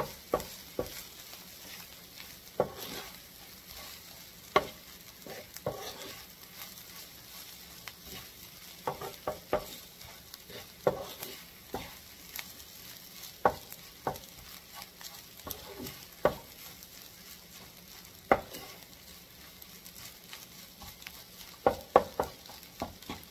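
Ground turkey sausage with flour and diced vegetables sizzling in a skillet as it simmers. A utensil stirs it, scraping and knocking against the pan now and then.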